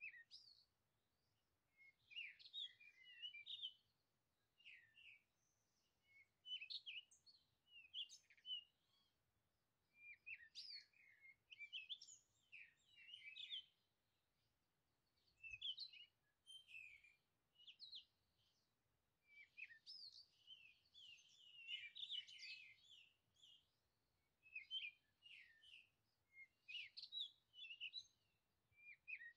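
Songbirds singing and chirping, faint, in short phrases that come every second or two.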